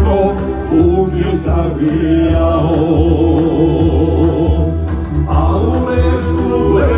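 A Serbian song playing: a voice sings a wavering, ornamented melody over a steady low instrumental accompaniment.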